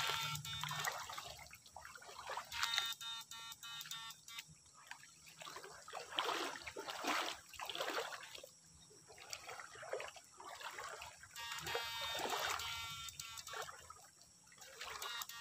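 Stream water splashing and swishing in irregular surges as a bamboo electrofishing pole is swept back and forth through it.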